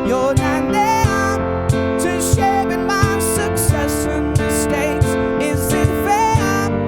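Live stripped-down pop song: acoustic guitar strummed in a steady rhythm under a sung melody line.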